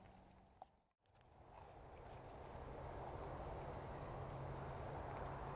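Sound fades to silence about a second in at a scene change, then outdoor ambience fades up, carried by a steady, high-pitched chirring of insects.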